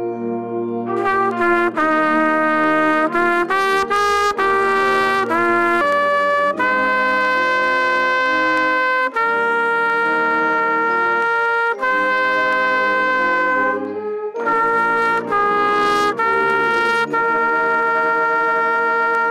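Trumpet played close up: a run of quick notes, then long held notes, then more changing notes near the end, with other instruments holding lower notes underneath.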